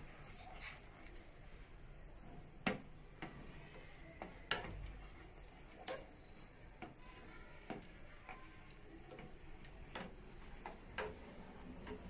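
Pot of spiced water simmering on the stove, giving faint, irregular ticks and pops every second or two.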